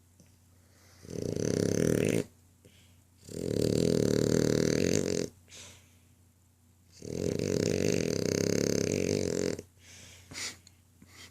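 French bulldog snoring: three loud snores, each lasting one to two and a half seconds, with quiet pauses between them.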